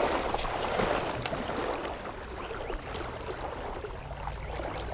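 Creek water rushing and splashing, loudest in the first second or so and then settling to a steadier flow.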